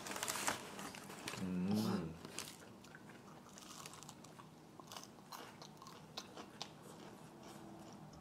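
Close-up chewing and crunching of food: a run of small, irregular crisp clicks, with a short voice-like sound about two seconds in.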